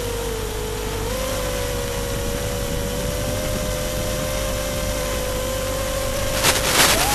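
FPV drone's electric motors giving a steady whine that follows the throttle. The pitch dips, recovers about a second in, and rises sharply near the end along with a burst of rushing noise.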